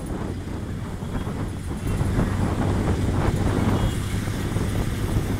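City bus running along the road, heard from a passenger window: a steady low engine hum under road rumble and wind, growing louder about two seconds in.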